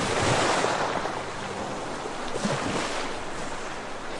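Steady rushing noise with no clear pitch, like surf or wind.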